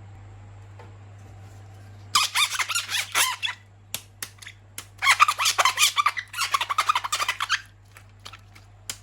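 Plastic crinkling and squeaking in two bouts, the second one longer, over a steady low hum.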